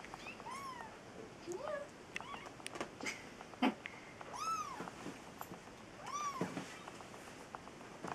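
Young kittens mewing: about four short, thin mews, each rising then falling in pitch. Small clicks and taps come between them, the sharpest near the middle.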